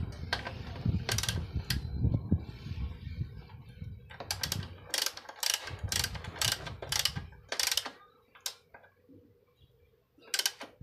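Ratchet wrench clicking in short runs, tightening the upper mounting bolt of a motorcycle rear shock absorber.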